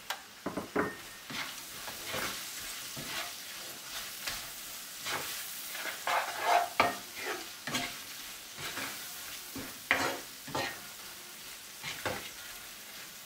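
Slit green chillies frying in oil and spices in a non-stick wok, sizzling steadily, while a plastic spatula stirs and scrapes them around the pan in irregular strokes about once a second.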